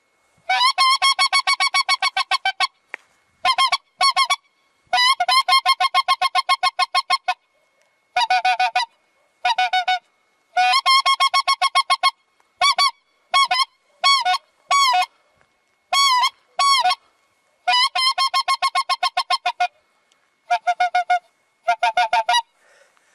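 BG-01 white-fronted goose call blown by mouth, giving imitation goose honks: runs of rapid honks lasting about two seconds, alternating with short pairs of honks. It has a soft sound, meant for calling geese at close range.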